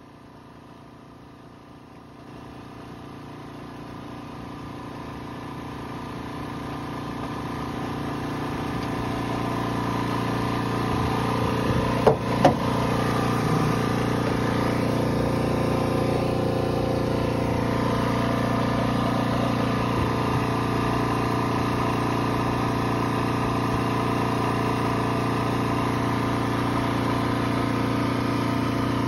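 A steady engine hum made of several held tones. It grows gradually louder over the first ten seconds, then holds steady. Two sharp knocks come about twelve seconds in.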